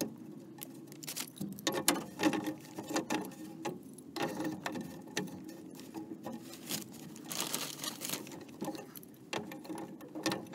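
Irregular rustling and scraping with many light clicks and knocks: a person shifting on plastic vapor-barrier sheeting in a crawlspace while handling a black plastic pipe cap at the end of an old sewer pipe.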